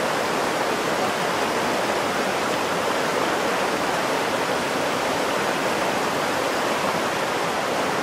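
Creek water rushing steadily over rocks, with a small cascade spilling into a pool.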